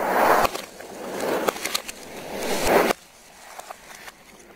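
Car tyre rolling over and crushing plastic soda bottles: crackling plastic and hissing bursts of released soda that swell and cut off sharply, three times, then lighter crackles and clicks.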